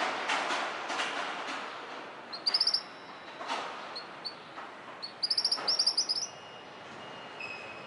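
A small bird calling in quick trills of high, rapid chirps, several times over, over a rushing background noise that is loudest in the first second and a half. A faint steady whine comes in near the end.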